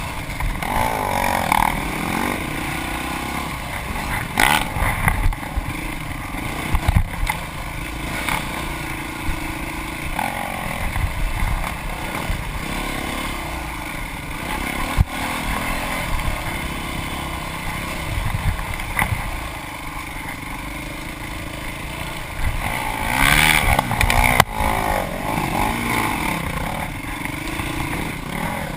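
Off-road dirt bike engine revving up and down as it rides a rough, narrow trail, with occasional sharp knocks from the bumpy ground.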